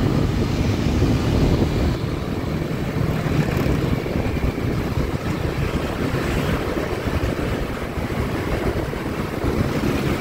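Steady road and traffic noise heard from a moving vehicle in town traffic, a low rumble with no pauses.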